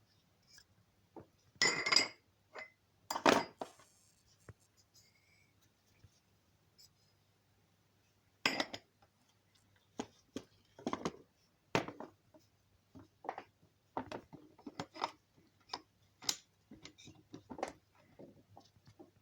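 Steel connecting rods and piston pins clinking and knocking as they are handled and fitted on a workbench: a few sharper knocks near the start and about halfway through, then a run of lighter metallic clicks in the second half.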